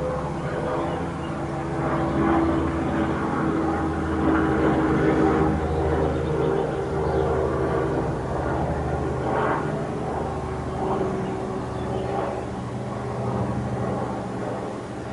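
Aircraft flying over, its engine giving a steady drone that is loudest a few seconds in.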